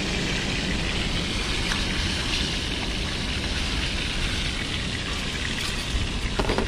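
A steady rushing hiss over a low wind rumble on the microphone, with a few short clicks near the end as a butane canister is fitted into a portable camp stove.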